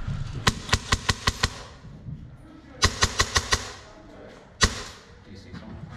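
Airsoft gun firing: two quick strings of about six sharp shots each, then a single shot near the end.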